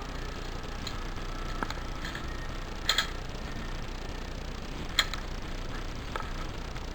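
Airsoft guns firing single shots as sharp clicks over a steady hiss, irregularly spaced, with the loudest a quick double shot about three seconds in and another at five seconds.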